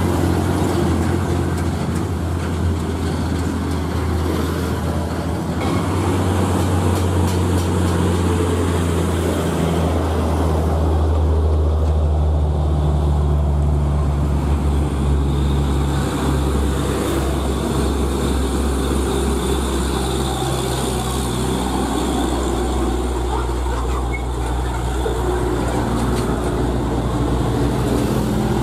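Heavy diesel trucks passing, their engines running with a deep steady drone over tyre and road noise. The engine note changes about ten seconds in as another truck takes over.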